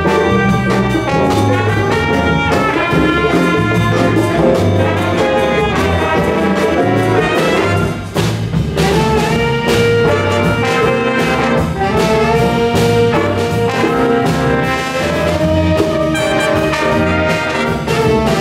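Jazz big band playing a swing tune: saxophones, trumpets and trombones over a walking bass line and drums. The horns drop out briefly about eight seconds in, then come back with long held notes.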